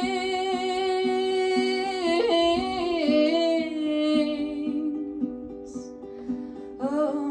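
Song: a voice holds one long sung note for about four seconds, then sings the word "wings" near the end, over a plucked string accompaniment with a steady pulse.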